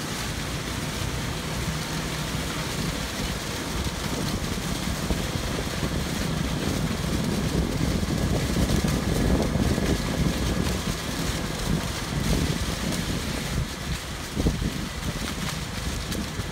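Car driving slowly over a leaf-covered road: a steady low rumble of engine and tyres, a little louder around the middle.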